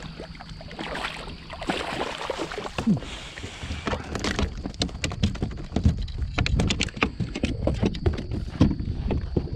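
Water splashing against a kayak hull as a hooked speckled trout thrashes at the surface beside the boat. In the second half comes a quick run of sharp clicks and knocks as the fish is reeled in close.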